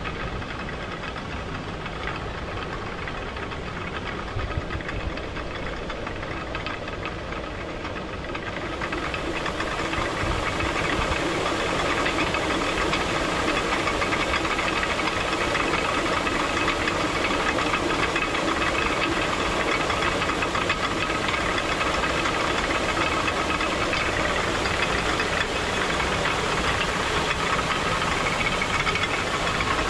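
Traditional Nepali water mill (ghatta) running: rushing water and the turning mill making a dense, steady, rough noise that grows louder about nine seconds in.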